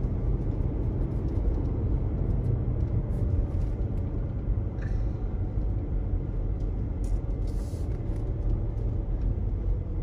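Steady low rumble of a car on the move, road and engine noise heard from inside the cabin.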